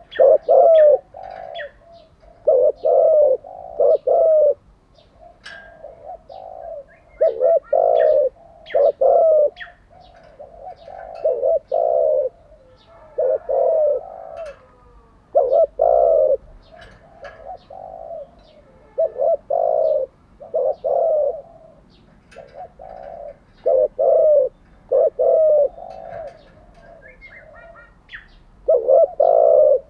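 Spotted dove cooing: a phrase of a few low coos roughly every two seconds, over and over. Faint short chirps sound between the phrases.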